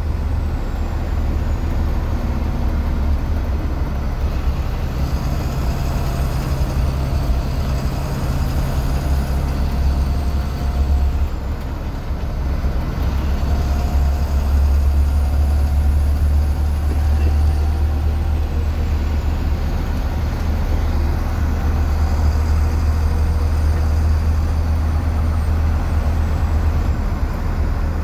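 A 2004 Blue Bird 3800 school bus's DT466E inline-six diesel running at road speed, heard from inside the cab as a steady low drone mixed with road noise. The drone dips briefly about eleven seconds in, then comes back stronger.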